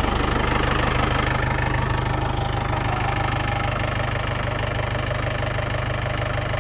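Jeep engine ticking over at a steady idle, just after starting up.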